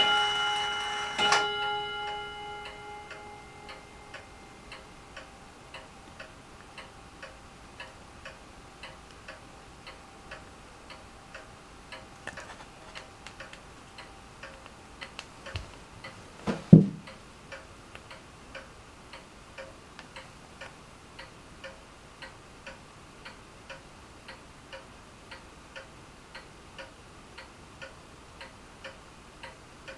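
A clock ticking steadily, about three ticks every two seconds, after a struck chime rings and fades away in the first few seconds. A single sharp knock sounds about halfway through.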